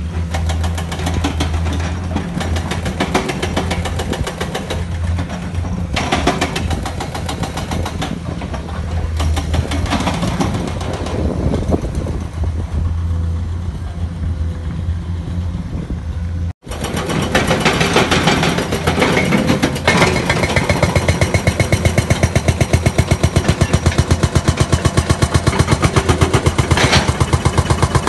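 Excavator's diesel engine running under load. About halfway through the sound cuts out for an instant and comes back with a fast, regular pulsing.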